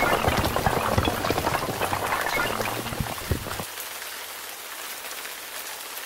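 Clatter of a collapsing wall of small blocks: a dense patter of many small impacts over a low rumble that dies down. About two-thirds of the way through the rumble cuts off, leaving a faint crackling hiss.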